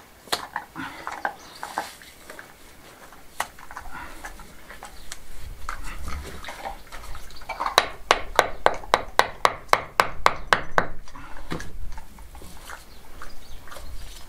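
Small hammer tapping a stone into a mortared rubble-stone wall: a quick run of about fifteen light taps, some five a second, starting about eight seconds in. Before it come scattered clicks and knocks of stones being handled.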